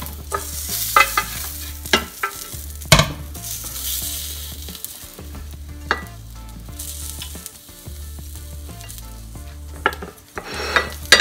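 Hot grilled food sizzling on a grill, with a few sharp clicks and knocks of a utensil as it is handled.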